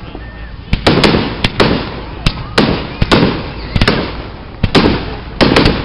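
Aerial firework shells bursting: about a dozen sharp bangs at irregular intervals, several coming in quick pairs or clusters, each followed by a lingering low rumble.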